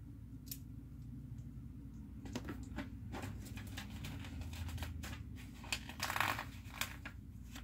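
Small plastic Lego pieces clicking and scraping in the fingers as a part is pushed at a minifigure without snapping on. The irregular clicks start about two seconds in and thicken into a quick flurry about six seconds in.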